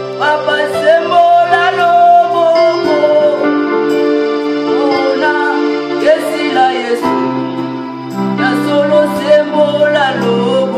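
Music: sustained keyboard chords under a voice singing long, wavering notes with vibrato in three phrases, without clear words.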